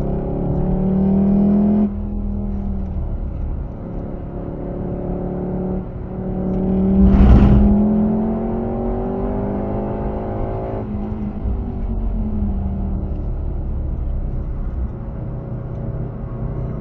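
Volkswagen Golf R Mk7's turbocharged four-cylinder engine, heard from inside the cabin, pulling hard with its note climbing. It drops back sharply about two seconds in, as the driver lifts, and again at an upshift about eleven seconds in. About seven seconds in there is a short, loud rush of noise, the loudest moment.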